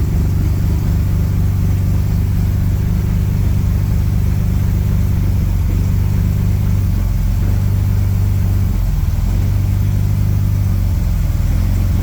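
1938 SS Jaguar 3½ Litre's straight-six engine running steadily at low revs, close by, with no revving.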